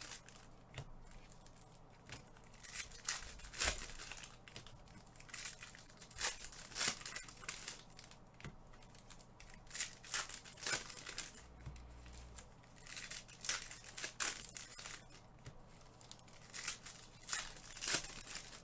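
Trading-card pack wrappers and cards being handled, with irregular crinkling and tearing rustles.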